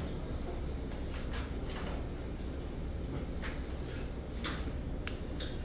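Steady low hum of room equipment with about six short rustles and clicks from gloved hands handling a plastic epidural catheter and its connector.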